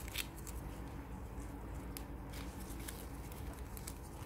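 Satin ribbon rustling as hands cross strands over each other and pull them snug, with scattered light crinkles and ticks over a low steady hum.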